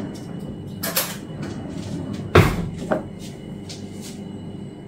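Kitchen cupboard door shut with a knock a little over two seconds in, followed by a smaller knock, with light clicks and taps of things being handled before and after.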